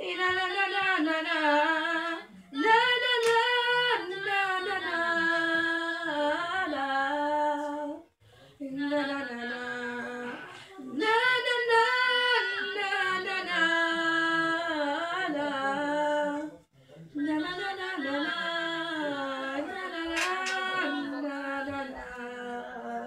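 A boy singing unaccompanied in long, held, melismatic phrases, with short breaks for breath between them.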